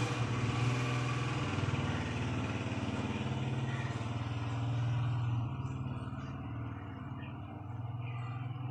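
A motor vehicle engine running steadily close by, a low hum that swells about halfway through and then fades.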